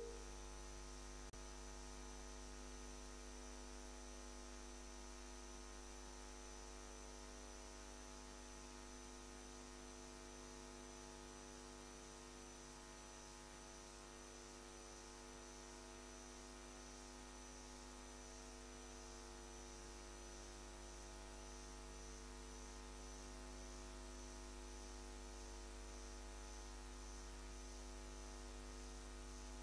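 Faint, steady electrical mains hum with a faint high whine, unchanging throughout, on an otherwise silent audio line.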